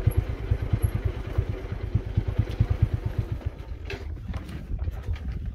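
Motorcycle engine running at low speed with a quick, even thumping beat, which drops away about four seconds in; a few light clicks follow near the end.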